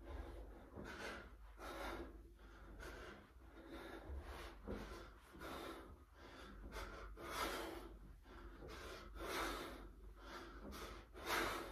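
A man breathing hard through a set of crunches: short, noisy breaths roughly one per repetition, about one a second, getting louder toward the end.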